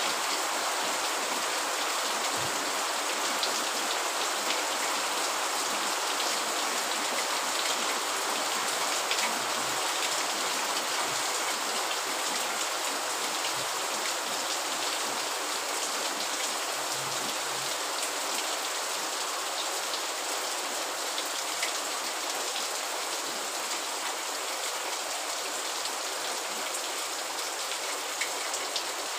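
Steady rain, an even hiss of falling drops.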